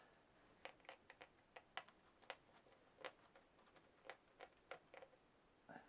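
Faint, irregular light clicks and ticks of a small screwdriver working the tiny screws that hold a laptop's LCD panel in its plastic lid.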